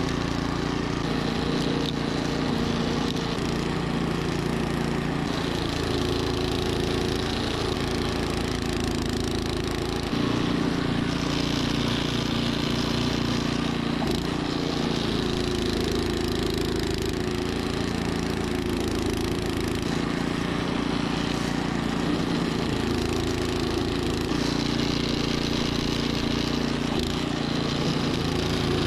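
Troy-Bilt snowblower engine running steadily as it clears deep snow, its note shifting a few times.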